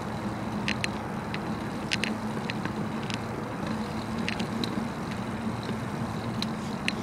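Bicycle rolling along a paved street: a steady noise of tyres and moving air with a low hum, broken by irregular sharp clicks and rattles.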